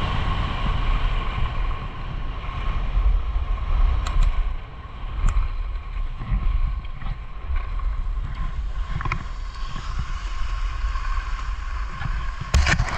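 Skis running over groomed snow, with wind buffeting the microphone as a steady low rumble under the hiss. A few sharp clicks break in, the loudest near the end.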